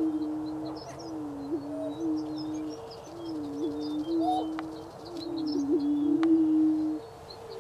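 Greater prairie chickens booming: low, steady moaning notes that overlap into a near-continuous chorus, the display call of males with inflated orange air sacs. A few short rising calls break in about one and a half and four seconds in.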